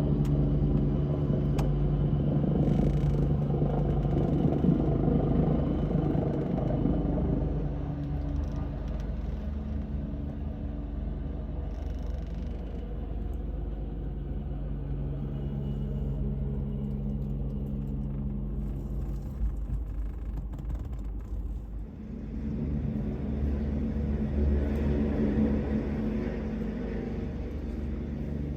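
Ambulance helicopter running with a steady, rumbling engine and rotor drone, louder at first, easing off after several seconds, dipping briefly and then swelling again near the end.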